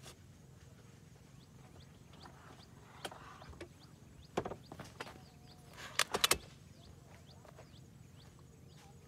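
Telescoping ladder of a hard-shell rooftop tent being pulled out and extended, its sections clacking as they slide and lock: a few sharp knocks, then a quick run of three or four louder clacks about six seconds in.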